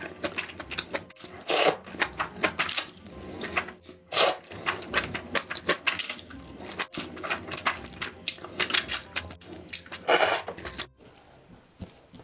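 Noodles in spicy broth being slurped and chewed: a run of loud, wet slurps with clicks and smacks, the longest about a second and a half in, around four seconds and around ten seconds. Near the end the sound drops to a quiet stretch with a faint high whine.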